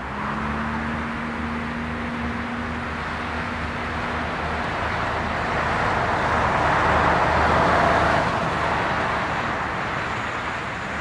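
Boeing 777-300ER's two GE90 turbofans at takeoff thrust during the takeoff roll: a steady jet roar that swells to its loudest about seven to eight seconds in, then eases slightly.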